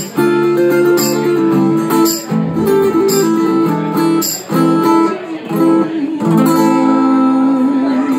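Acoustic guitar strummed in an instrumental passage between sung lines, with held chords and a strong stroke about once a second.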